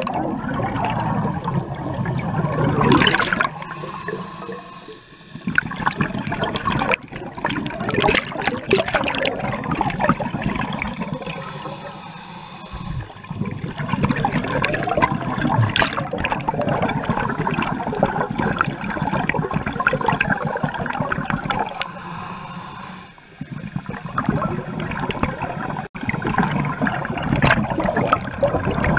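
A scuba diver's exhaled air bubbling out of the regulator and rushing past the underwater camera in long bubbling bursts. Three short lulls between the bursts mark the breaths.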